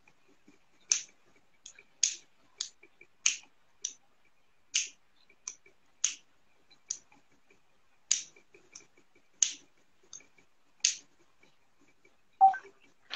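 A series of sharp, irregularly spaced clicks, roughly one or two a second, with a quiet background between them. Just before the end comes one louder, short sound with a brief tone in it.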